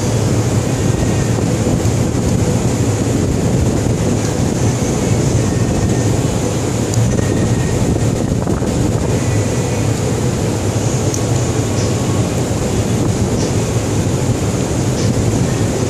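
Steady, loud low rumble with a hiss over it, unchanging throughout.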